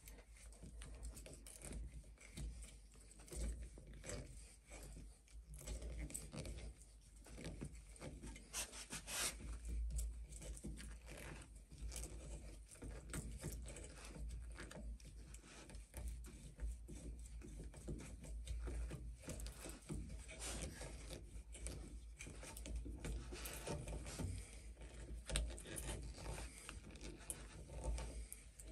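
Victorinox pocket knife's steel awl being twisted back and forth to bore through a softwood block: faint, irregular scraping and rubbing of steel reaming into wood.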